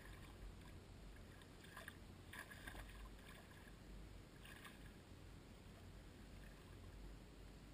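Faint splashing of bare feet wading into shallow water over pebbles: a few short splashes over a low steady rumble.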